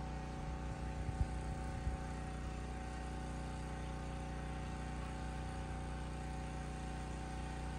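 A steady mechanical hum, like an engine or motor running at idle. A couple of short low knocks come about a second in.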